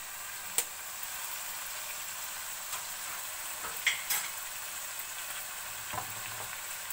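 Chicken and chopped tomatoes frying in masala in a steel pot on a gas burner: a steady sizzling hiss. There is a sharp click just after the start and a couple of fainter clicks about four seconds in.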